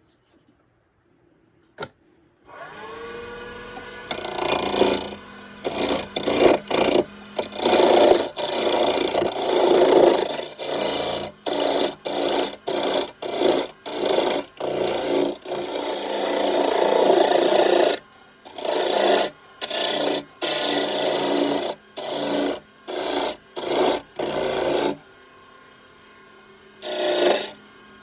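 Wood lathe motor switched on and spinning up, settling into a steady hum, then a turning tool cutting the spinning wood in many short passes, each a loud scraping lasting under a second to about two seconds, with brief pauses. Near the end the cutting stops for a couple of seconds while the lathe keeps running, then starts again.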